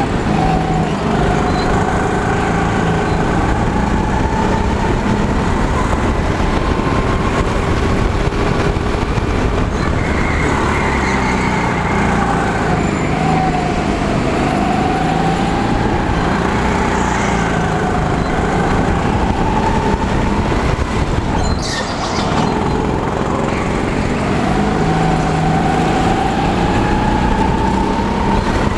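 Go-kart engine heard onboard during a lap, its pitch rising and falling again and again as the kart speeds up and slows through the corners. There is a short sharp noise about three-quarters of the way through.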